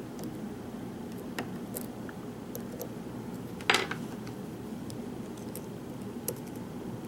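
Light metallic clicks and ticks of a lock pick and tension wrench working inside a pin-tumbler challenge lock, with one louder metallic clink a little past the middle.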